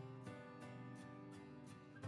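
Quiet background music with plucked notes in a steady, even pulse.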